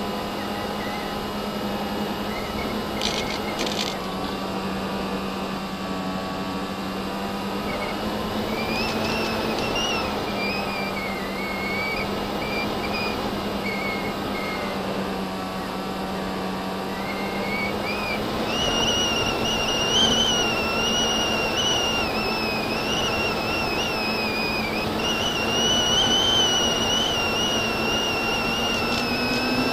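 FPV quadcopter's motors and propellers whining in flight, the high pitch wandering up and down with the throttle over a steady low hum, and running higher from a little past halfway.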